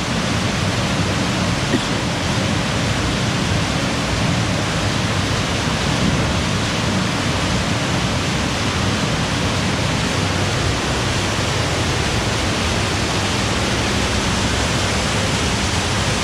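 Loud, steady rush of a waterfall's falling water, an unbroken wash of noise with no distinct splashes or breaks.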